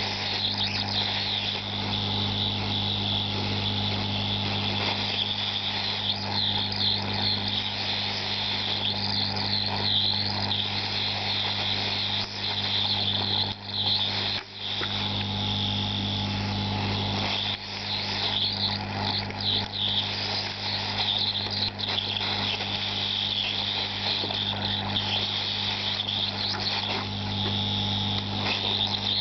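Hot-air soldering station blowing steadily while desoldering RAM chips from a circuit board: a constant fan hum under an airy hiss, dipping briefly twice midway.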